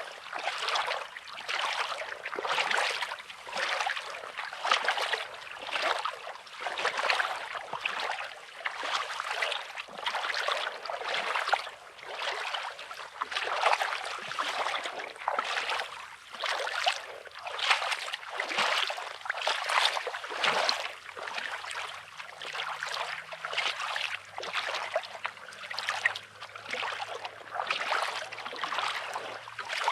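Footsteps crunching on coarse, pebbly beach sand at a steady walking pace, a step about every half second. A faint low hum joins from about halfway through.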